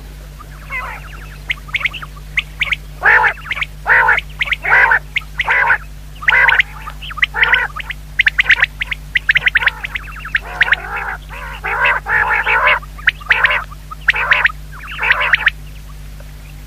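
Quail calling: a long run of short, harsh calls, repeated quickly in clusters with brief pauses, over a faint steady low hum.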